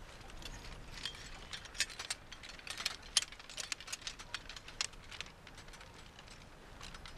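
Scattered sharp clicks and light rattling, thickest in the middle few seconds, from a line of redcoat soldiers' muskets and kit.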